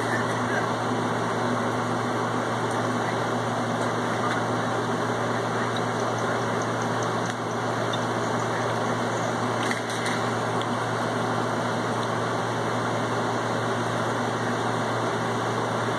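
Steady mechanical hum with a constant rushing noise that does not change.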